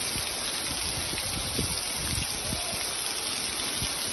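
Heavy rain falling steadily onto a paved street, with runoff water running and splashing across it.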